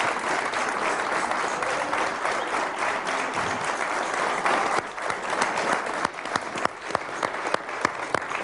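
Studio audience applauding: dense, continuous clapping for about the first five seconds, then thinning into scattered individual claps.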